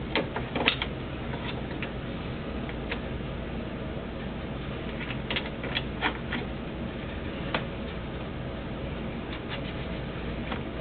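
Scattered light clicks and taps of parts being handled and fitted by hand, over a steady background hiss.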